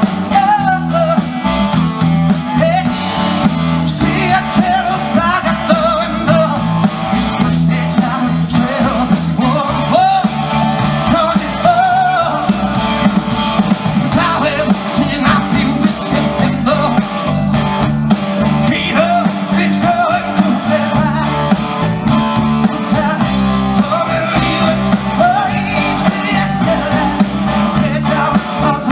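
Live blues-rock band playing: a male singer's voice over guitar and drums, running steadily.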